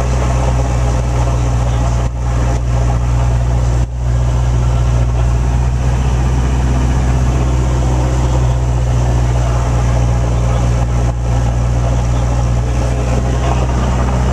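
Light airplane's piston engine and propeller running steadily, heard from inside the cabin. There are two brief drops in level about two and four seconds in.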